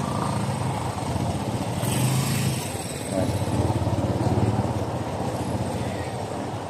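Small motorcycle engine running steadily on a street, swelling a little about two seconds in and again around four seconds.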